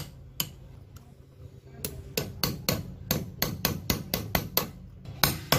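Hammer striking a screwdriver to knock back the bent tab of the lock washer on a Lambretta's clutch bell nut: sharp metal taps. One tap, then a quick run of about a dozen at roughly five a second, then two more near the end.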